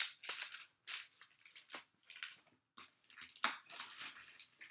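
Hard plastic graded-comic slabs being handled: an irregular run of sharp clicks, clacks and short scrapes as one slab is put down and the next is picked up.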